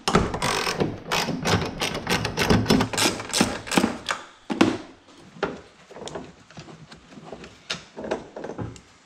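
Rapid, irregular clicking and metal knocks from hand tools and parts as a car's front strut assembly is worked free. The clicking thins out to scattered clicks and clunks about halfway through.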